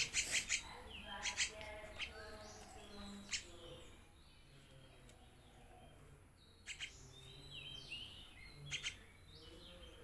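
Javan myna chick giving short harsh calls every second or two, with thin falling chirps between them.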